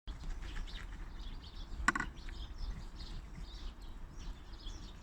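A squirrel feeder gives one short, pitched squeak about two seconds in, with birds chirping faintly in the background.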